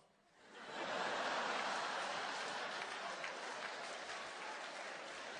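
Theatre audience laughing and applauding, swelling up over the first second and then slowly tapering off.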